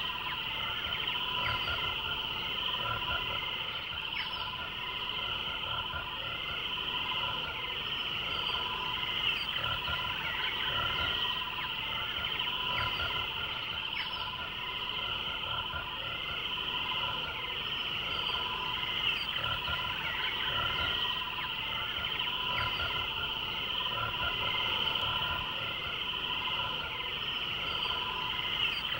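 A dense, steady chorus of many chirping animal calls.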